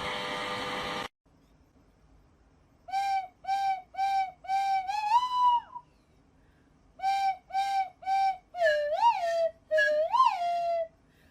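A steady rushing noise cuts off about a second in. Then come short whistle-like notes in two phrases, each a few even notes on one pitch followed by notes that swoop up and back down.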